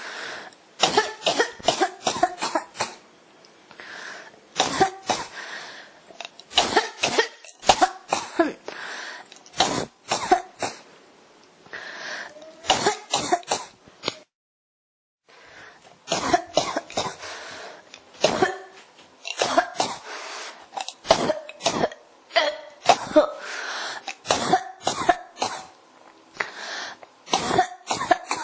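Coughing fits: runs of several sharp coughs in quick succession, separated by short pauses. The sound cuts to silence for about a second midway, then the coughing resumes.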